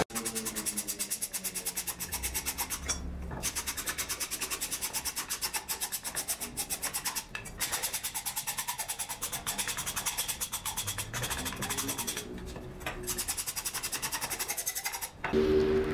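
Rapid back-and-forth hand rasping along a round wooden leg, a quick rhythm of scratchy strokes broken by three or four brief pauses.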